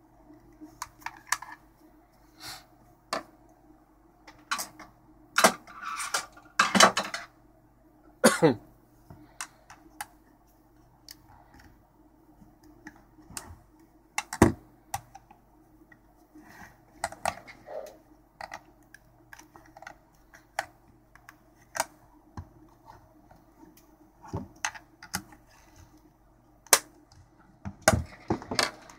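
Plastic case of a Dyson DC35 vacuum battery pack being pried open with a flathead screwdriver: irregular sharp clicks, knocks and scrapes of the steel blade on the plastic and the case giving way, a few of them much louder than the rest.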